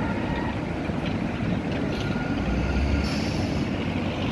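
Tatra KT4 articulated tram rolling past close by, a steady rumble of steel wheels on the track, with one heavier low thud about two and a half seconds in.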